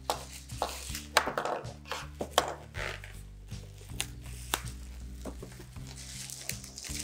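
Plastic bubble wrap crinkling and crackling as it is pulled open and cut with scissors, with two sharp snaps, about a second and two and a half seconds in. Calm background music underneath.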